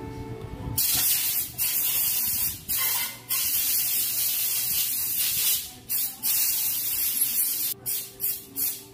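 Loud pressurised spray hissing in long blasts with a few short breaks. It starts about a second in and comes in shorter spurts near the end.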